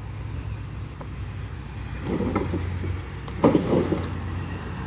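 A small car towing a trailer drives up, its engine humming steadily under road noise, with two louder bursts of noise about two seconds and three and a half seconds in, the second the loudest.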